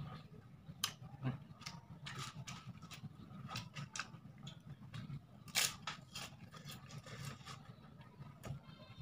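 A person eating with his mouth close to the microphone: chewing with short, sharp crunches and clicks scattered throughout, the loudest about halfway through, over a low steady hum.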